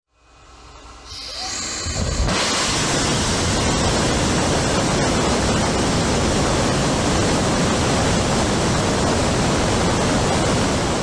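SpaceX Raptor Vacuum rocket engine test-firing. It builds up from quiet over the first two seconds, then a steady, loud rushing noise holds at full thrust.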